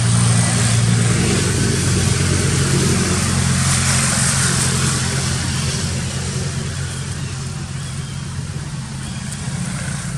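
A vehicle engine running close by with a steady low hum, and a hiss that swells about four seconds in and then eases.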